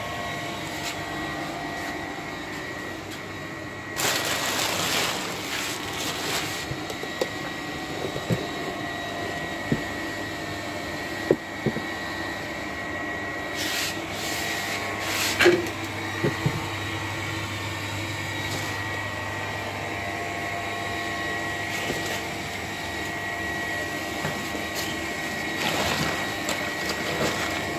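Crumpled newspaper and plastic sheeting rustling in several bursts as they are handled and pulled about, with a few sharp clicks and knocks. Under it runs a steady machine hum with a thin high whine.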